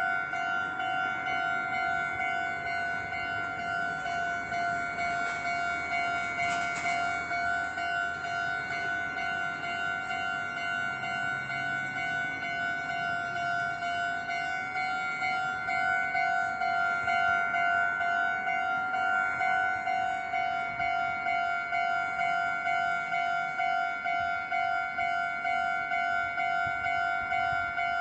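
Japanese railway level-crossing warning bell ringing in a steady, even, repeating clang, signalling that a train is approaching.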